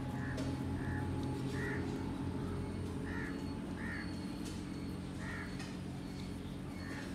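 Short animal calls, about seven of them, each brief and irregularly spaced, over a steady low hum.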